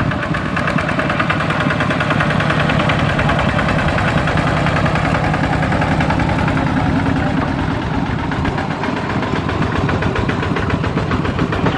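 Single-cylinder diesel engine of a two-wheel walking tractor running steadily with a fast, even chugging beat while it pulls a trailer loaded with rice sacks.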